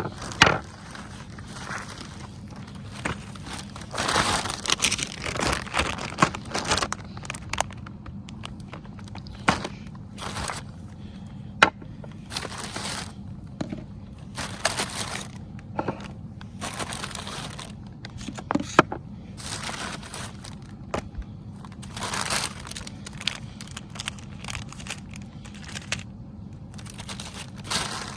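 Irregular rustling, crinkling and scattered knocks of things being handled, over a faint steady low hum.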